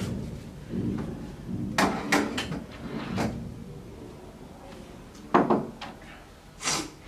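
A series of sharp knocks and clicks, several in quick succession about two seconds in and more between five and seven seconds in: small objects being handled and set down on a tabletop.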